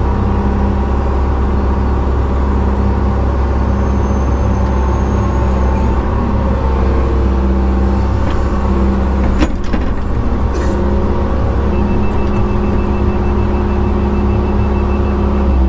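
John Deere 120 excavator's diesel engine and hydraulics running steadily under load while digging and dumping dirt, heard from inside the cab. A couple of brief knocks come in the middle.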